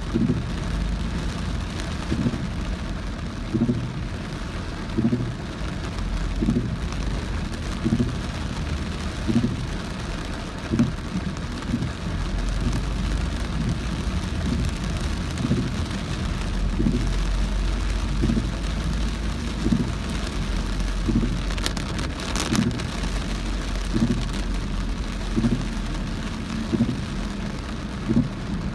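Heavy rain drumming on a moving car, over a low rumble from the road. Soft low thuds repeat about every one and a half seconds, and a brief louder hiss comes a little past two-thirds of the way through.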